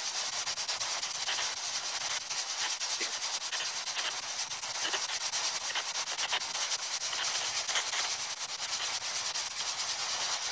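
Spirit box, a radio scanning rapidly through stations, giving a steady hiss of static chopped by many fast clicks as it sweeps.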